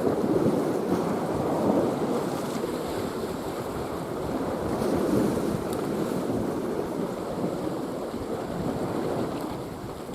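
Sea waves washing on a rocky shore, with wind buffeting the microphone; the rush swells and eases every few seconds.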